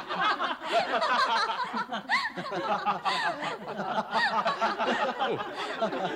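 A group of people laughing and chuckling together, many voices overlapping.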